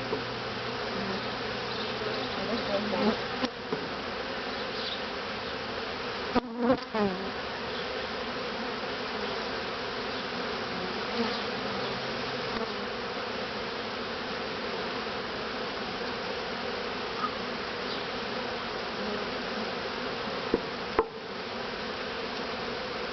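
A honeybee colony in an opened top-bar hive, buzzing in a steady, dense hum. The bees are disturbed by the comb being lifted out. A few brief knocks come about six seconds in and again near the end.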